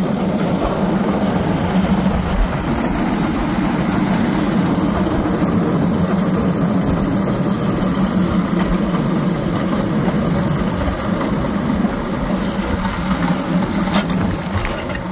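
Small engine of a railcart running steadily as the cart rolls along the rails. There is a brief sharp snap near the end as branches of a trackside bush brush against the cart.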